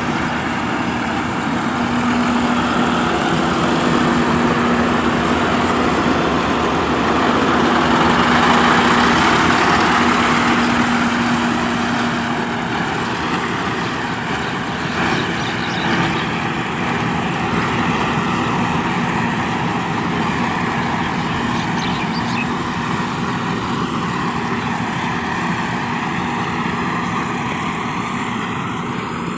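Yanmar AG600A combine harvester's diesel engine running steadily, with a constant hum and the drone of its machinery.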